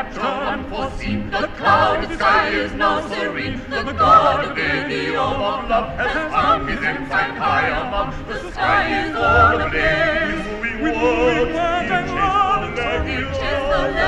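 Background music: operatic singing by a choir, the voices wavering with vibrato.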